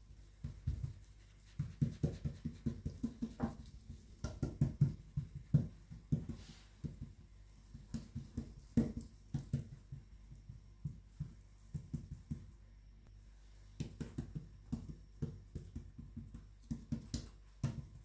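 Hands patting and pressing a thin sheet of dough flat against a countertop: clusters of quick, soft, dull thumps, with short quieter pauses between them.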